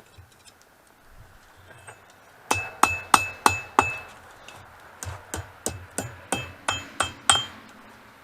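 Hammer blows on hot mild steel at the anvil, bending an arm of a forged hold-down: first five hard ringing strikes about three a second, then after a short pause a run of about eight lighter strikes.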